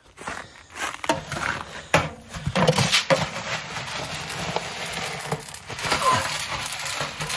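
Plastic scoop digging into pig feed pellets in a galvanized metal can, the pellets rattling and scraping against the metal in repeated clattering strokes. Pigs grunt now and then.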